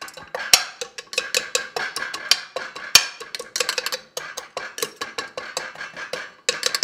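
Metal spoon knocking and scraping against the bottom of a stainless steel saucepan, bruising whole spices such as cinnamon sticks, peppercorns and cloves. The clinks come a few times a second, unevenly, with sharper knocks about half a second and three seconds in.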